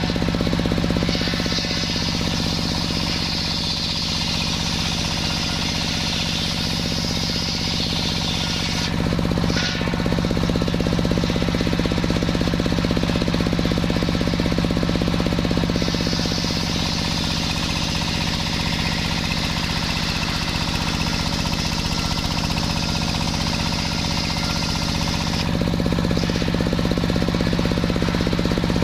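Sawmill saw running with a steady machine hum while it cuts a waru (sea hibiscus) log. The hiss of the blade in the wood lasts from about a second in until about nine seconds, then starts again from about sixteen to twenty-five seconds: two separate cuts.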